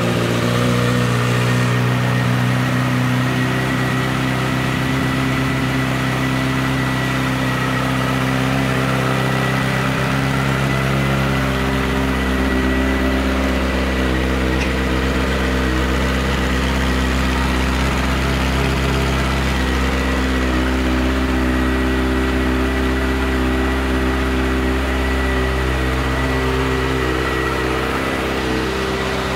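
2009 Kawasaki ZX-6R's 599 cc inline-four, fitted with an aftermarket M4 exhaust, idling steadily.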